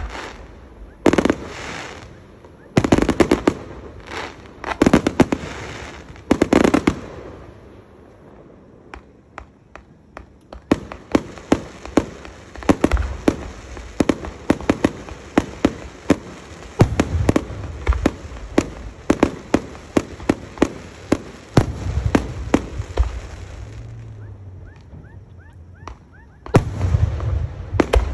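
Aerial fireworks: a series of loud shell bursts with booming low ends over the first several seconds, then after a short lull a long stretch of rapid sharp pops and crackles, several a second, with heavier bursts returning near the end.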